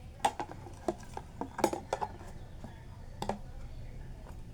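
Metal cutlery clinking and scraping against a plate during a meal: a quick run of sharp clinks in the first two seconds, then one more about three seconds in.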